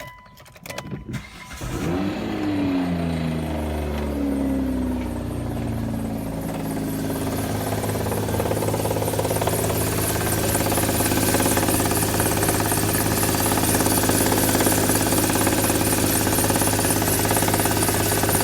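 Hyundai car engine cranking and starting about a second and a half in, its revs flaring and then falling away to a steady idle. Through the idle runs an even, rapid ticking knock, which the owner calls a knock in the motor.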